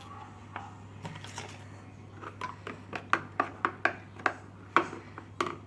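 Light clicks and taps of a utensil against a container while slime ingredients are being mixed, sparse at first and then about three a second from a little past two seconds in, over a low steady hum.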